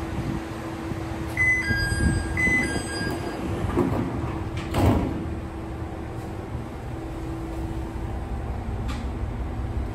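Diesel railcar door chime, a two-note falling chime sounded twice, then a sliding door shutting with a thump about five seconds in, over the steady hum of the idling diesel engine.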